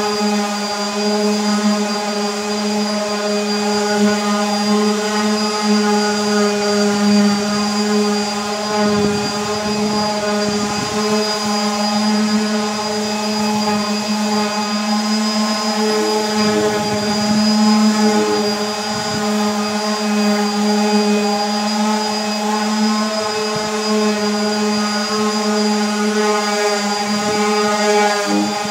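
Electric palm sander running steadily with a constant motor whine while sanding the wooden top of a kitchen island before its clear coat, with some rougher scuffing now and then as the pad works the wood.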